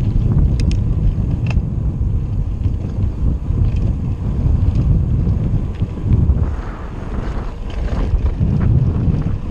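Wind buffeting the microphone of a camera riding on a moving bicycle, a rough, uneven low rumble. There are a few light clicks in the first couple of seconds.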